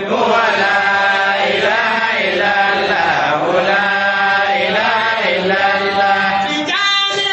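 Men chanting Sufi dhikr together, one short phrase repeated over and over in even cycles.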